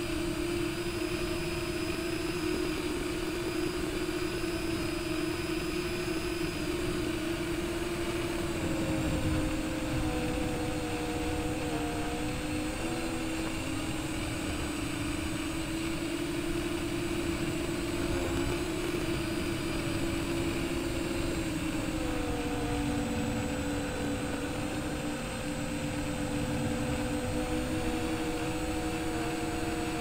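Brushless motors and triblade propellers of a modded MJX Bugs 3 quadcopter humming steadily in flight, heard from the camera on the drone itself. The pitch dips and rises a little a few times with the throttle.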